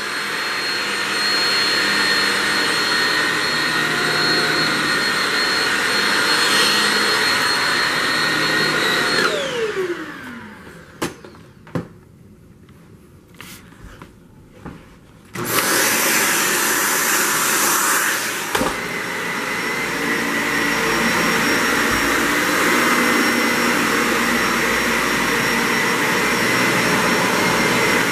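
Shark Rocket DuoClean stick vacuum cleaning carpet with a steady whine, switched off about nine seconds in, its pitch falling as the motor spins down. After a few handling knocks, a Dyson Ball Animal 2 upright vacuum starts up abruptly about fifteen seconds in, and a deeper rumble joins its run about three seconds later.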